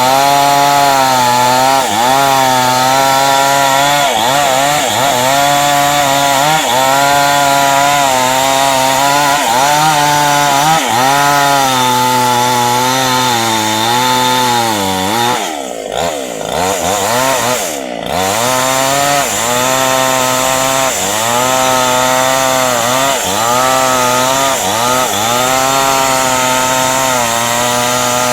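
Two-stroke chainsaw running at high revs while cutting into dense acacia hardwood. Its pitch dips every second or two as the chain bites, then drops sharply twice about fifteen to eighteen seconds in before revving back up.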